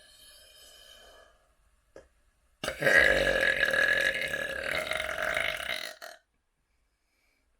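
A person burping: one long, loud burp of about three and a half seconds, beginning a little before the middle. Before it there is a fainter sound.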